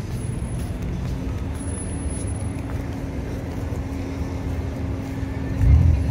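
Outdoor city background of road traffic: a steady low rumble with a faint steady hum, and two loud low thuds near the end.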